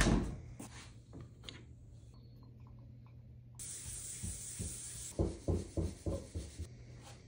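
A door shuts with a thud at the start. Then a white Scotch-Brite pad is rubbed over a wooden board to apply a finish: a steady scrubbing hiss about halfway through, turning into about six quick back-and-forth strokes.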